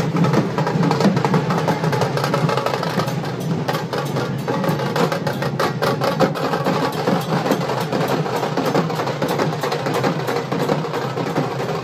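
Drums beaten in a fast, dense rhythm of sharp strokes, thickest a few seconds in, over a steady wash of noise.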